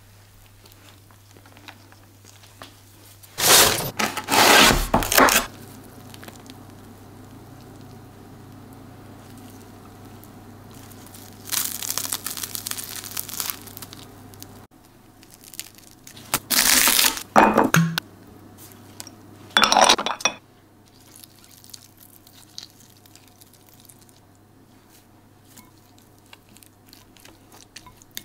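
Kitchen food-preparation sounds: a knife spreading butter, cutlery and dish clinks, and a few loud bursts of crackling as a crusty baked baguette is pulled apart, between quieter stretches of light scraping.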